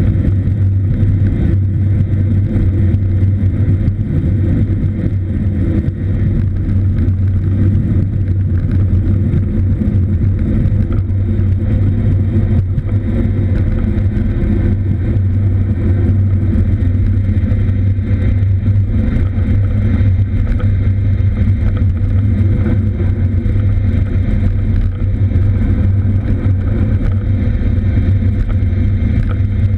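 Steady low rumble of wind and road noise from a moving cross bike, even in level with no separate events.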